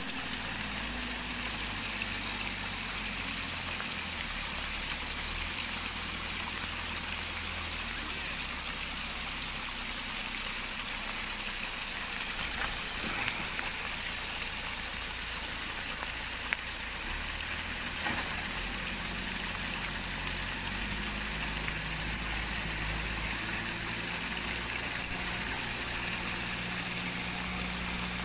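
Steady hiss of heavy rain, with a vehicle engine idling low underneath. One sharp click a little past halfway.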